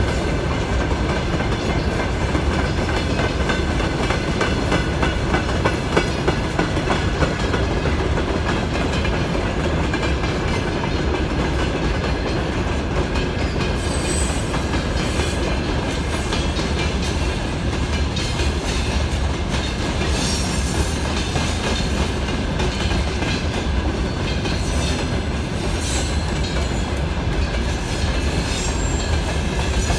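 Freight train cars rolling past: a steady rumble of wheels on rail with clickety-clack over the rail joints.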